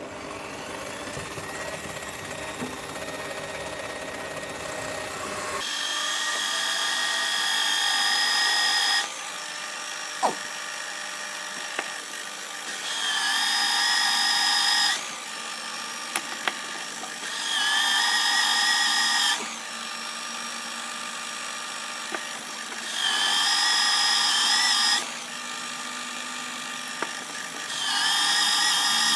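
Drill press boring a hole through an annealed steel knife blade. The motor runs, then the bit squeals high and loud as it bites into the steel, in five bouts of two to three seconds each, with quieter running in between.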